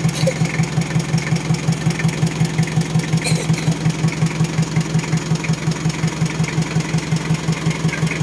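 Car engine idling under the open hood, a steady low hum pulsing evenly about five times a second, with its air-conditioning running while refrigerant is being charged through manifold gauges.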